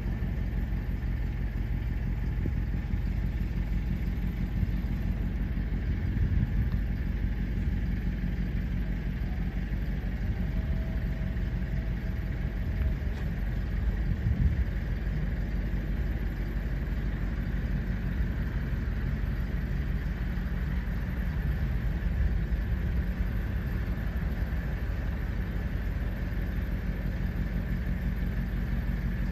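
Steady low rumble and hum of a moving vehicle, heard from inside it.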